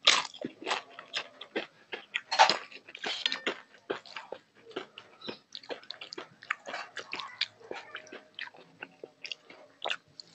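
Biting into and chewing a crisp fried papad (papadum) close to a lapel microphone: sharp crackling crunches, loudest right at the start and again about two and a half seconds in, then softer, sparser chewing crunches.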